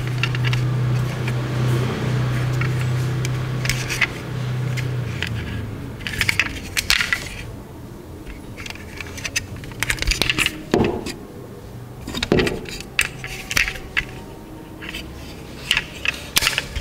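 Small metal die-cast toy cars clinking and clicking against each other and other hard surfaces as they are handled, in scattered sharp taps and rattles. A steady low hum runs underneath for the first five seconds or so.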